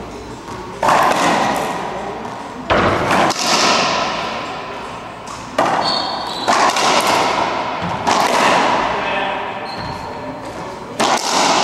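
Racquetball rally: about seven sharp cracks of the ball off racquets and court walls, each ringing on in the enclosed court's echo.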